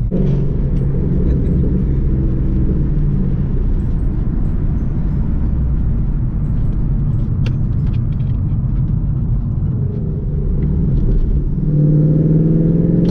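Ford Mustang GT's 5.0 V8 engine heard from inside the cabin while driving, a steady low rumble that grows louder near the end.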